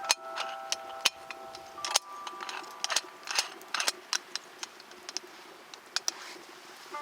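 Wood campfire crackling: irregular sharp snaps and pops, several a second, some much louder than others.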